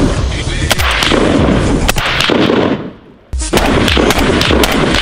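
A string of rifle shots from an FN SCAR rifle, each a sharp crack, with a short break about three seconds in.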